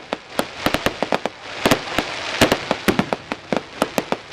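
Fireworks going off: a rapid, irregular string of sharp bangs and crackles over a steady hiss.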